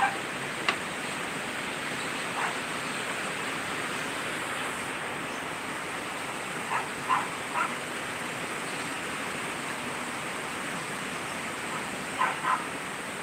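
Steady heavy rain from the tropical storm. A few short animal calls cut through it: single ones near the start, three in quick succession about halfway, and two near the end.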